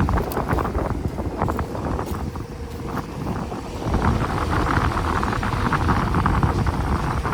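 Central air conditioner's outdoor condenser unit running: the fan and compressor give a steady, noisy hum that gets somewhat louder about halfway through.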